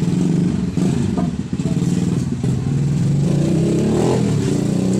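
Bajaj RE three-wheeler's single-cylinder engine running with a steady pulsing beat, its pitch rising briefly about four seconds in.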